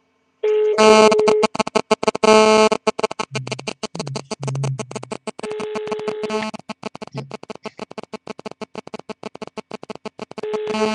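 Music coming down a mobile call through a Nokia phone's loudspeaker, choppy and broken up by rapid dropouts, with a few steady synthetic-sounding notes changing every second or so; it starts about half a second in.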